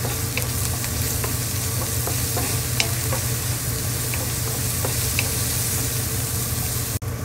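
Diced onions and minced garlic sizzling in oil in a stone-coated wok, stirred with a wooden spatula that clicks and scrapes against the pan now and then. The sound drops out for an instant near the end.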